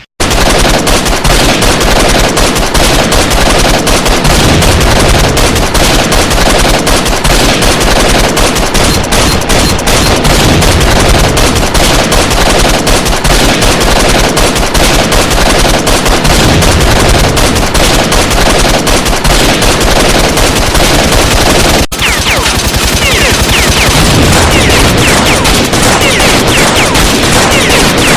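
Sustained rapid automatic gunfire, shot after shot with no let-up, with a momentary break about 22 seconds in before another burst of dense firing.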